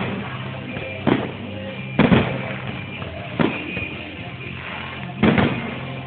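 Aerial fireworks shells bursting, five sharp bangs at irregular intervals of about a second, two of them close together about two seconds in.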